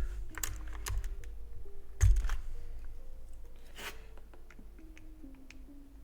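Scattered plastic clicks of keycaps being handled and pressed onto the switches of a mechanical keyboard, with a dull thump about two seconds in, over quiet background music.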